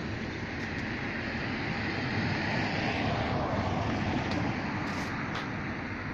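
Steady rushing noise of road traffic and wind on the microphone, swelling a little in the middle, with a few faint clicks.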